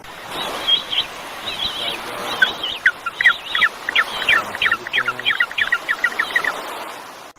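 A bird calling: a few warbling high notes, then a fast run of short chirps, about four a second, that stops near the end.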